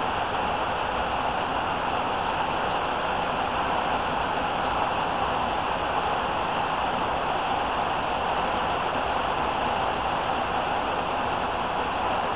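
Heavy rain pouring steadily, an even hiss that holds at one level throughout.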